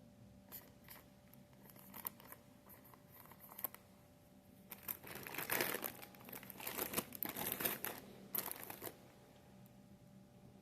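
Crinkling, rustling handling noise with scattered clicks, building to a denser stretch of rustling in the middle that stops about a second before the end.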